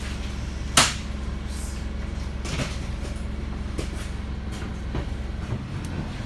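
Wright StreetLite bus's Daimler OM934 four-cylinder diesel running steadily, heard from inside the passenger saloon. There is a sharp knock or rattle about a second in, a few fainter knocks after it, and the engine note changes near the end.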